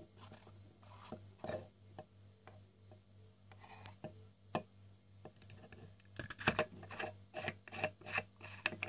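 Acrylic four-piece herb grinder being twisted and pulled apart by hand: plastic rasping, rubbing and clicking of its threads, teeth and sections, busier and louder in the second half. A steady low hum runs underneath.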